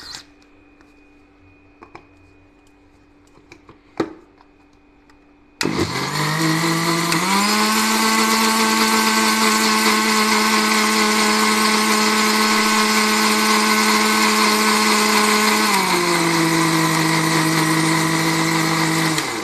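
After a couple of light clicks as the steel jar is fitted, an electric mixer grinder (mixie) starts and runs up in pitch over about a second and a half, then runs steadily, blending sugar, oil and milk into a batter. Near the end its pitch drops a little before it stops.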